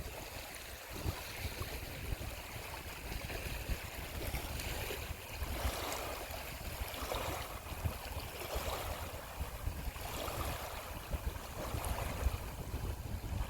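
Moving water splashing and lapping under wind rumble on the phone's microphone, with soft swells of splashing every second or two.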